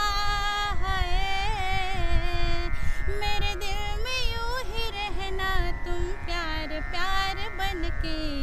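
A woman singing a Hindi film-song melody in raag Yaman, with gliding, ornamented notes and vibrato over a steady held drone accompaniment.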